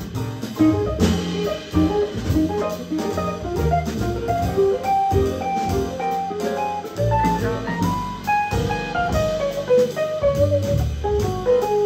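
Live jazz band playing instrumentally: a single-note solo on a red hollow-body electric guitar over upright double bass and a drum kit with cymbals.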